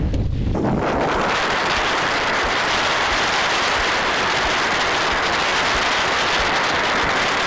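A steady, even hiss of water rushing and spraying past a Sunfish sailboat's hull as it sails fast, setting in about half a second in over a fainter wind rumble.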